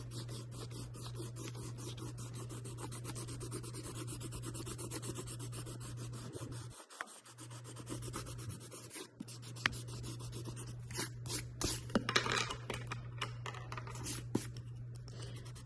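Pencil-top rubber eraser scrubbing back and forth on paper in quick strokes, rubbing out pencil guidelines. The strokes get louder and more uneven in the second half.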